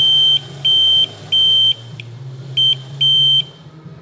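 RC scale wheel loader's electronic reverse beeper sounding a high, steady beep about two and a half times a second as the model backs up, over a low hum. Near the end the beeps turn short and uneven and then stop, as the electronic switch cuts out when reverse throttle eases toward a stop.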